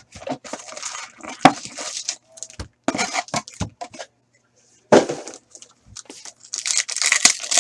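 Plastic and foil wrapping on a box of hockey cards being torn open and crinkled, with a few sharp knocks of cardboard being handled.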